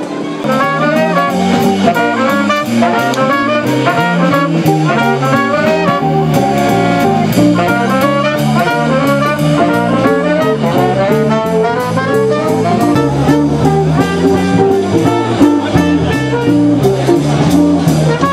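Upbeat jazz with brass horns playing running melodic lines over a bass line that moves note by note, with a steady drum beat.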